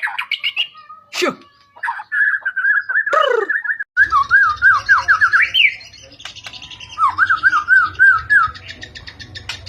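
White-rumped shama (murai batu) singing: fast runs of repeated, looping whistled notes, in several phrases of one to two seconds with short pauses between, and a few sharp calls.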